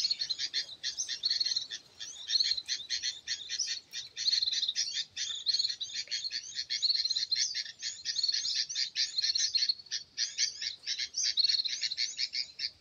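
Bird-trapping lure recording played through a speaker: a dense, unbroken stream of rapid high-pitched bird chirps, cutting off suddenly near the end.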